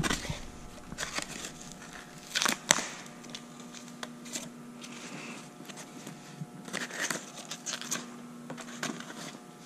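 Sandpaper rustling and crinkling in irregular bursts, with light clicks and scrapes, as a worn sheet is pulled off a pad sander and a new sheet of 100-grit paper is handled. The sander's motor is off.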